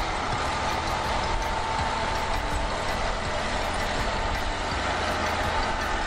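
Engine of a vintage International Harvester crawler bulldozer running steadily as the machine pushes soil with its blade, with a steady high whine over the engine noise.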